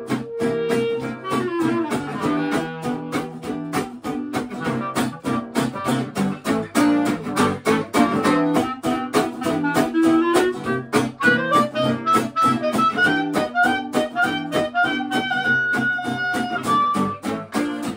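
Clarinet solo over two acoustic guitars strumming a steady rhythm. The clarinet line moves in short notes, climbs in steps through the second half to a high held note, then drops near the end.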